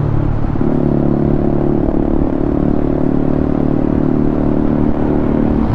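Motorcycle engine running steadily under way, its pitch stepping up slightly about half a second in and then holding.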